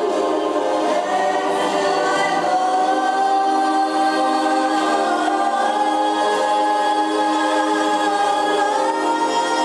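A woman singing one long held note into a microphone over backing music, the pitch sliding slowly upward and stepping up once near the end.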